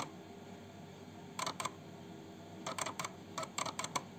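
Compaq Contura 4/25 laptop's built-in floppy drive clicking as its head stepper moves the read head: a sharp click at the start, then three short bursts of quick mechanical clicks.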